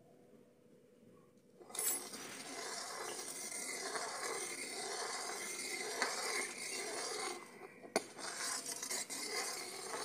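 Steel ladle stirring boiling milk in a metal kadhai, scraping against the pan in repeated strokes, starting about two seconds in. The milk is being stirred as it thickens into rabri. A sharp click comes near the end.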